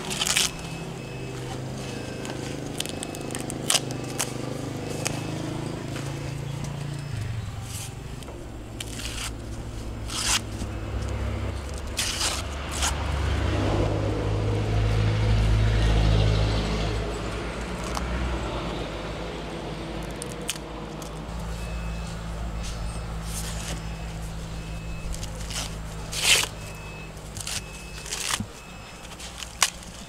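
Fresh corn husks being torn and peeled back from the cobs and the silk pulled away by hand, a close crackling, scraping rustle with many sharp tearing snaps. Underneath runs a steady low hum that swells to its loudest about halfway through.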